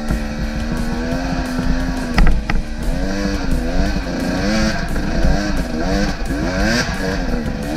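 Enduro dirt bike engine revving up and down as the throttle is worked on and off over and over, with a couple of sharp knocks about two seconds in.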